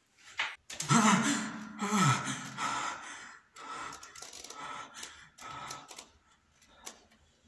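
A young man's wordless vocalizing: a groan falling in pitch about a second in, then a run of short breathy gasps, about one a second, fading near the end.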